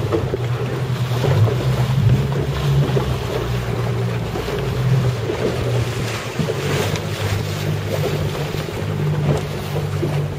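Inflatable boat's outboard motor running steadily, its low drone shifting slightly in pitch, under wind and sea-water noise against the hull.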